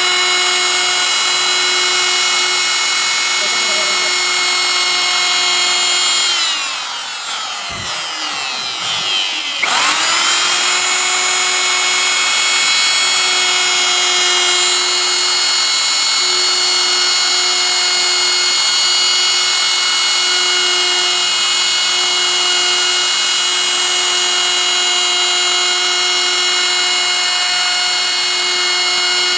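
Electric plunge router running at high speed with a steady high whine as its straight bit cuts grooves into the board. About six seconds in, the motor's whine drops in pitch and quietens for roughly three seconds, then quickly climbs back to full speed.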